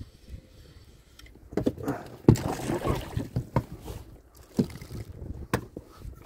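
A hooked pike being brought aboard an inflatable boat: splashing and a run of knocks and thumps against the boat and its gear, the loudest about two seconds in, with two more single knocks near the end.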